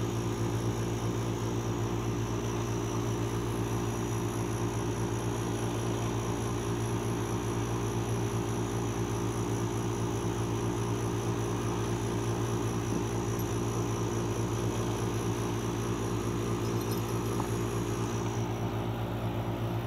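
Steady mechanical hum with several low tones and a faint high whine, unchanging throughout.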